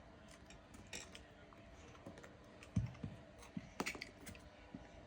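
Small kitchen utensils being handled: a few faint, scattered clicks and taps, with a soft thump nearly three seconds in.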